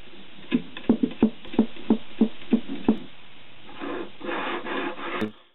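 Steel smooth rods and linear bearings of a 3D printer's Y-axis frame being handled on a table: a regular run of about eight knocks, roughly three a second, then a rattling rub for about a second and a half near the end that cuts off suddenly.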